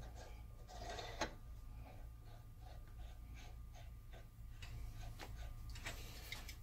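Light metallic clicks and faint ticking from a hand tool working on the end of a lathe's cross-slide screw, a few separate clicks with a quicker run of small ticks in the middle.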